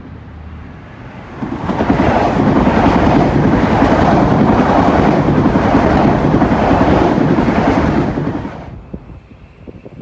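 Metro-North M8 electric multiple-unit train passing close by at speed: a loud rush of wheel-on-rail and car-body noise that comes up sharply about a second and a half in and drops away near the end as the train clears.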